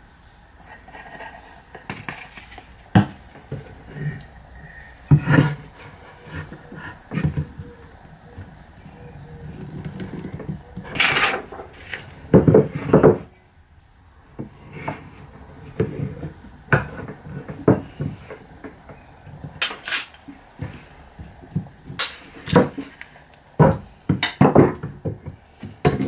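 Pine blocks and hand tools being handled on a wooden workbench: irregular knocks and clatter as wood is set down and shifted, and a steel square and clamps are put against it.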